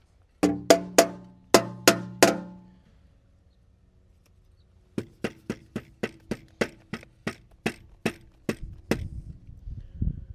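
Sharp knocking on a hard, hollow-sounding object: six loud knocks in the first two seconds, each with a short ring, then after a pause about fourteen lighter, evenly spaced knocks, roughly three a second.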